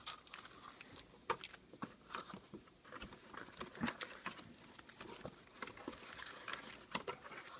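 Baseball card foil packs being lifted out of their cardboard box and set down one after another: scattered light taps and clicks with soft crinkling between them.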